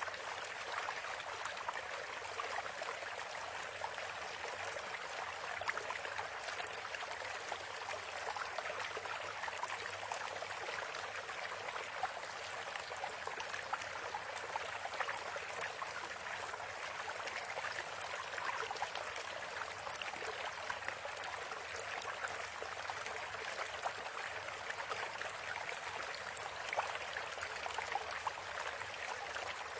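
A steady, even rush of flowing water, like a stream.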